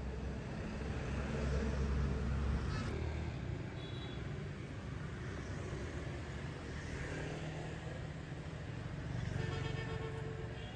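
A motor vehicle's engine running with a steady low rumble that swells about two seconds in.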